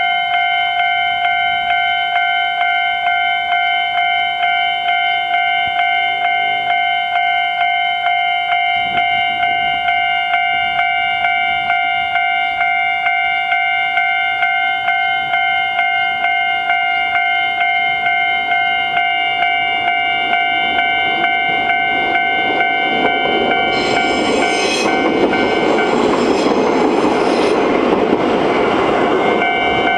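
Railway level crossing warning bell ringing in a quick, even ding-ding rhythm. About 22 seconds in, a train rumbles through the crossing, its noise swelling and briefly drowning out the bell before it comes through again near the end.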